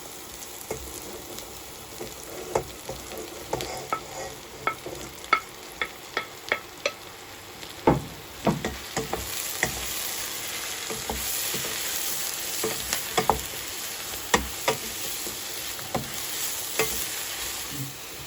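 Sliced mushrooms frying in olive oil with garlic and onions in a pan, stirred with a utensil that clicks and knocks against the pan many times. The sizzling grows louder about nine seconds in.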